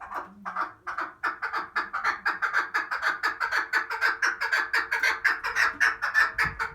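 Female chukar partridge calling: a long run of short clucking notes that quickens to about six a second and stops abruptly near the end. This is the hen's call that hunters use to draw in cock partridges.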